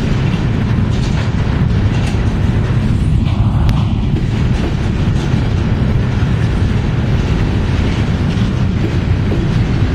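Norfolk Southern freight train's cars rolling past: a steady, loud rumble with a continual clatter of wheel clicks.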